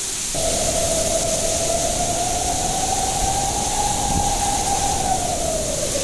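Storm wind blowing hard with heavy rain hissing. Over it a whistling howl that slowly rises and falls in pitch, jumping higher shortly after the start.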